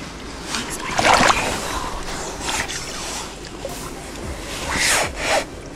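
Creek water splashing and rushing, with uneven louder bursts of splashing about a second in and again near the end.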